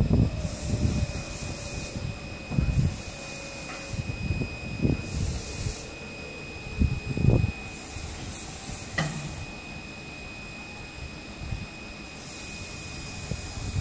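Wind buffeting the microphone in irregular gusts, with a faint steady high whine and a single sharp click about nine seconds in.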